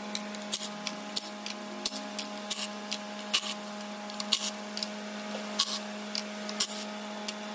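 Socket ratchet clicking as 10 mm bolts are backed out of an intake plenum: a run of sharp clicks, two or three a second, thinning out in the second half, over a steady low hum.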